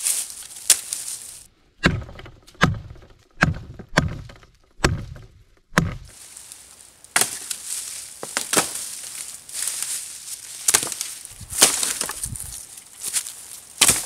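Wood being chopped: about six sharp strokes in quick succession, then rustling with scattered cracks and snaps as wood and brush are handled.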